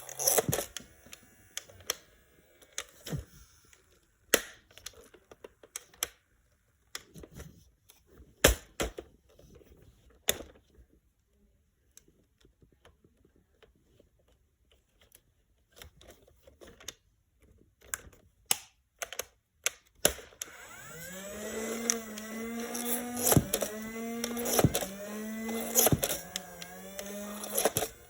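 Scattered plastic clicks and knocks of a Nerf Ultra Strife blaster being handled and readied. About two-thirds of the way in, its flywheel motors spin up with a rising whir, and several darts fire with sharp snaps, each briefly pulling the motor's pitch down.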